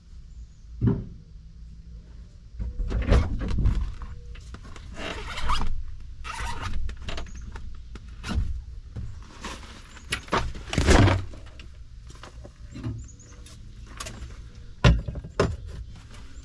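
Gear being loaded into a Jeep's cab: a backpack and a fabric bag rustling as they are handled, with several dull thumps and knocks as they are set on the seat and against the vehicle.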